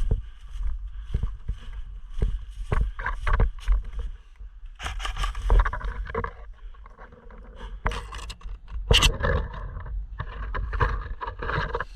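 Scraping and rustling with irregular knocks and clicks: handling and movement noise on a body-worn action camera as the wearer moves about. The loudest rustling comes in three stretches, about five, eight and ten seconds in.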